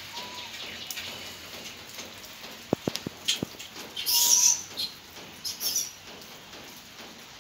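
Short animal chirps and whistles, with a few sharp clicks about three seconds in and a loud high-pitched squeal-like burst about four seconds in.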